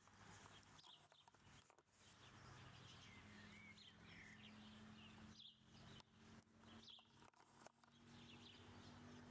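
Near silence with faint bird chirps about once a second, over a low steady hum that comes in about two seconds in.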